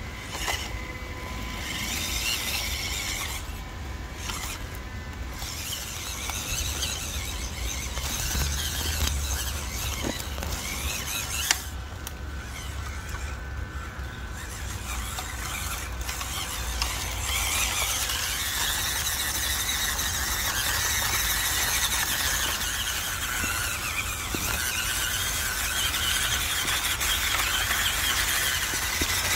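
The 180-size brushed electric motor and gearbox of a WPL C24-1 1/16-scale RC crawler whine at a high pitch, the pitch rising and falling with the throttle as it drives. There is one sharp click about a third of the way in.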